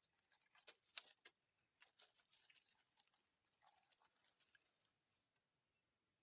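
Faint steady chorus of insects, a high continuous chirring, with a few sharp clicks in the first two seconds, the loudest about a second in.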